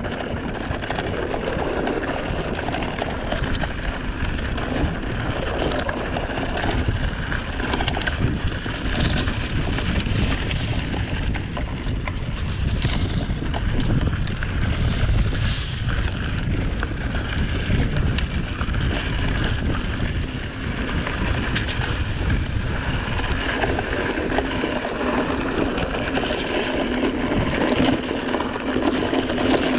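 Wind rushing over the microphone and the steady rumble and rattle of a mountain bike riding fast downhill over a rough trail.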